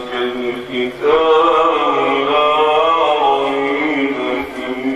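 A man chanting Quran recitation in the drawn-out tajwid style: a short phrase, then one long melismatic note held and wavering slowly in pitch from about a second in.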